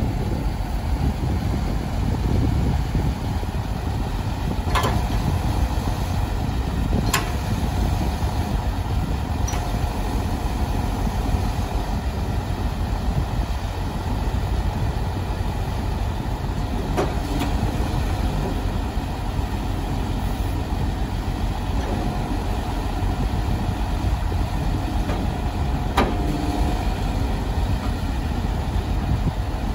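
MAN 26.320 truck's six-cylinder diesel engine idling steadily while it drives the hydraulics of the Palfinger PK12000 loader crane as the boom is raised and extended. A few sharp clicks or knocks sound over it, four in all.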